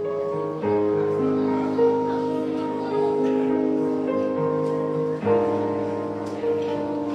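Keyboard instrument playing slow, held chords, with the chord changing twice.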